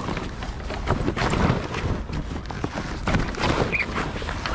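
Stiff mainsail cloth rustling and crumpling as the sail is pulled down the mast and handled, with irregular knocks and clatter.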